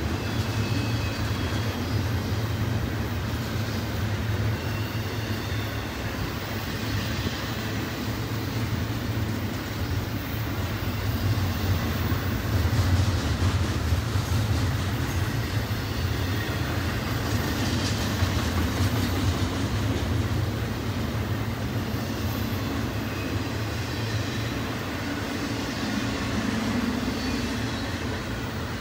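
Double-stack intermodal well cars rolling past: a steady rumble of steel wheels on rail.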